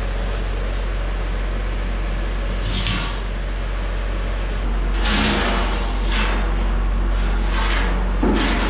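Expanded-metal steel grate being handled and set down into a steel smoker chamber: a few short scrapes and clanks of metal on metal, the loudest about five seconds in, over a steady low hum.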